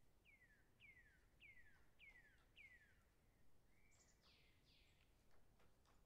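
Faint, distant bird calls: a series of five falling whistled notes about half a second apart, then a short level note and two broader falling notes, with a few faint ticks in the background.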